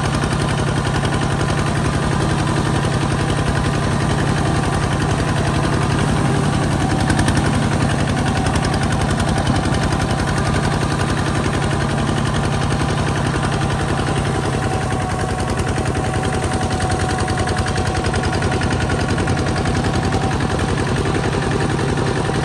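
Kubota ZT140 two-wheel walking tractor's single-cylinder diesel engine running steadily under load as the tractor drives through mud, a fast, even chugging.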